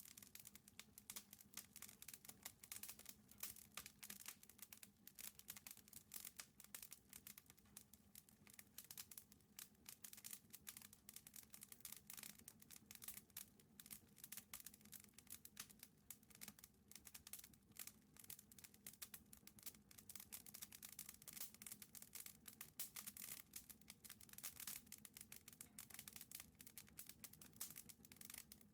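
Wood fire crackling in the firebox of a wood-burning stove-fireplace: a steady stream of irregular, faint snaps and pops, several a second.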